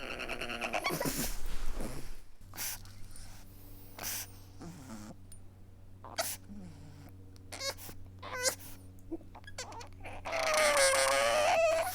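A pug whimpering and whining: wavering, high-pitched cries in the first two seconds, short snuffly noises in between, and a long wavering whine near the end.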